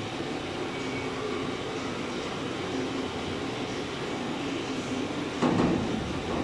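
Manual sheet-metal folding brake bending a long thin steel roofing sheet into a ridge roll: a steady metallic rumble of the sheet and machine, with a louder clatter about five and a half seconds in.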